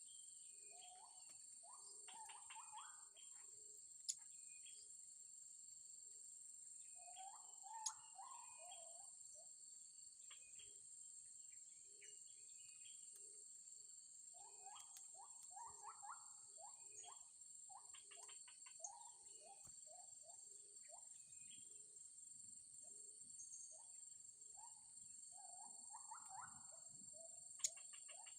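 Faint bird chirping in short scattered flurries, over a steady high-pitched drone. Three sharp clicks stand out, the loudest near the end.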